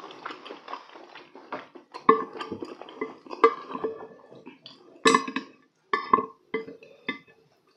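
Chopsticks and a spoon clinking and scraping against a serving dish while picking pieces of braised chicken out of the sauce: a run of sharp clinks, the loudest about five seconds in. Chewing is heard in the first couple of seconds.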